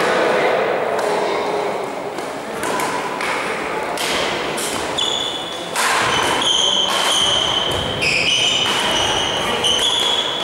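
Sports-hall din between badminton rallies: shoe soles squeaking on the court floor in a run of short, high squeaks from about six seconds in, over echoing voices and a few knocks.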